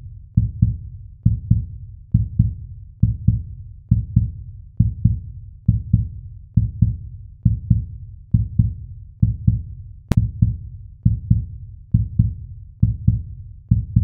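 Heartbeat sound effect in an intro soundtrack: pairs of low thumps, lub-dub, repeating steadily a little faster than once a second, with a single sharp tick about ten seconds in.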